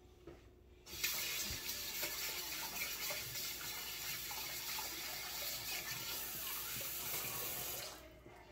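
Water tap running into a sink: a steady rush of water that starts abruptly about a second in and cuts off about a second before the end.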